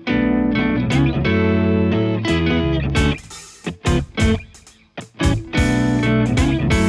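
Background music: a riff of sustained electric guitar chords broken by short stabs and pauses.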